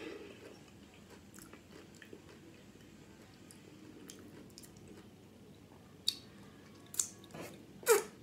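A person chewing a mouthful of salsa-soaked nachos close to the microphone, then smacking and sucking salsa off her fingers near the end in three sharp smacks, the last and loudest with a short falling squeak.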